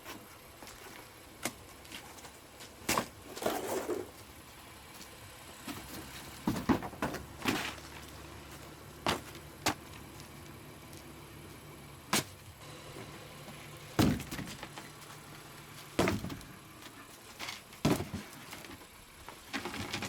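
Scattered knocks, clicks and thumps in and around a car, such as doors and objects being moved, the sharpest about 7 and 14 seconds in. A faint low steady hum runs through the middle for several seconds.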